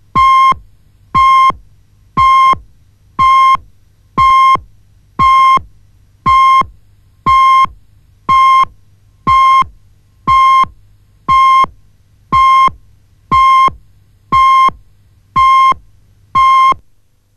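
Broadcast countdown clock's line-up pips: a short, high-pitched electronic beep once a second, marking the countdown to the start of the programme, with a faint low hum between the beeps. The beeps stop near the end.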